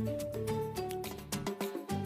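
Background music: a melody of short held notes over a bass line with a light steady beat.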